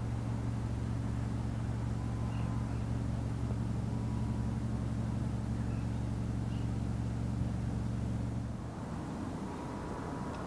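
Steady low engine hum, running evenly and then cutting out about eight and a half seconds in.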